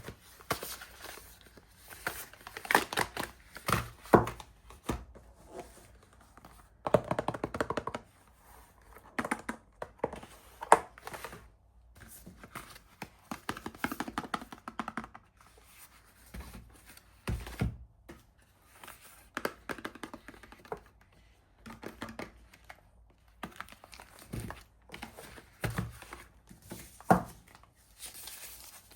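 Soap wrappers being torn open and crinkled by hand in repeated bursts, with a few sharper knocks among them.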